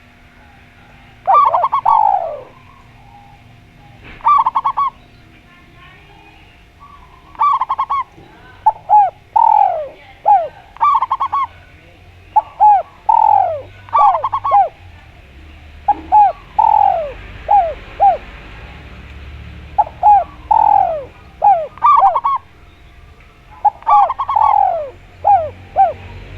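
Spotted dove and zebra dove cooing, repeated phrases of clipped and falling notes coming every second or two, with short pauses between groups.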